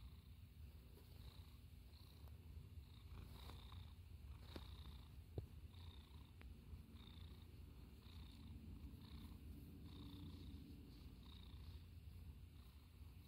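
A seal-point Siamese cat purring quietly and steadily while stroked, a low rumble that swells and eases a little under once a second with its breathing. A single soft click about five seconds in.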